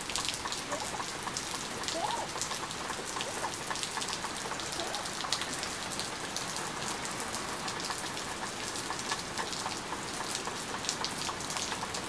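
Steady rain from a hurricane's outer band, with many separate drop hits ticking throughout.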